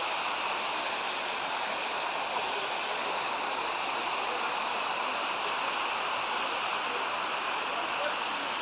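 Mountain stream rushing over a cascade of small waterfalls: a steady, even rush of water.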